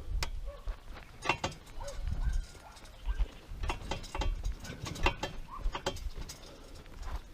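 Irregular mechanical clicks and knocks, like tools and metal parts being handled, over an uneven low rumble.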